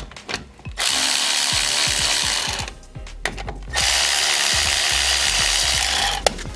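Milwaukee 3/8-inch cordless ratchet running hub retaining bolts in, in two steady runs of about two seconds each, with a sharp click near the end.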